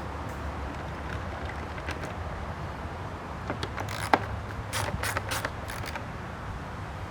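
Hand tools clicking and scraping on the metal of a push mower while its bolts are worked loose, with a cluster of sharp clicks about halfway through, over a steady low rumble.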